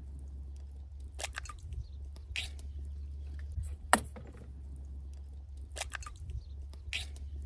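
Eggs being cracked into a stainless steel bowl: a handful of sharp taps and shell crunches, the loudest about four seconds in, over a steady low hum.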